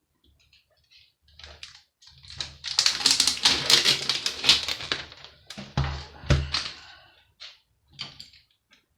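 Rapid clicking and rattling of a monitor's casing and parts being handled and taken apart by hand, with a couple of heavier knocks about six seconds in.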